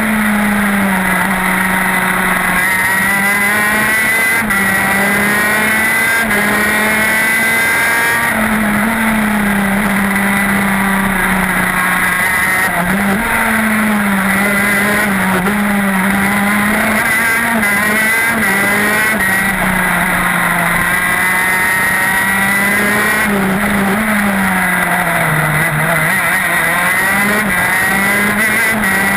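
TM K9B 125cc two-stroke shifter kart engine running hard on track, heard from onboard the kart. Its pitch climbs and drops over and over as it accelerates and backs off through the corners.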